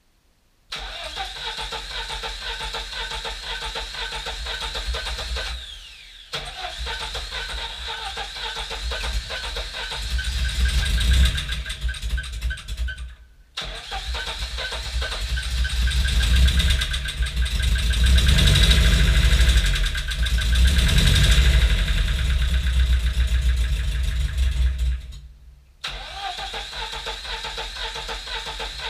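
Carburetted 1.5-litre inline-four of a VAZ 2105-series car (2105-20 carburettor) running with a steady sound, revved up twice. Three times it winds down and goes quiet, then comes back suddenly each time.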